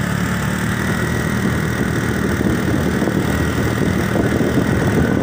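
Motorcycle engines running steadily on the move.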